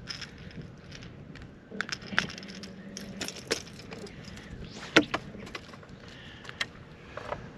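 Handling noise from unhooking a just-caught largemouth bass: scattered light clicks and clinks, typical of a Whopper Plopper topwater lure's metal hooks, with one sharp knock about five seconds in.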